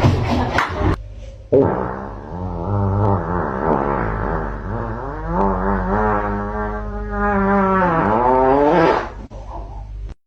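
One long, drawn-out fart starting about a second and a half in and lasting some seven seconds: a held tone that wavers up and down in pitch, dips twice, then stops.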